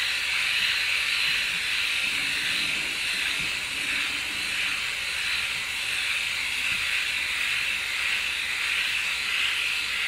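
Flawless Legs battery electric shaver running steadily with a high, hissy whir as it is moved in circles over leg hair, the sound rising and dipping slightly with the motion.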